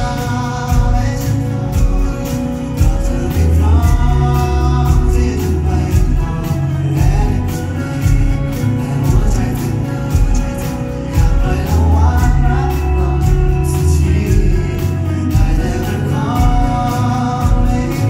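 Live band playing a song with singing: a drum kit keeps a steady beat under electric guitar and bass guitar.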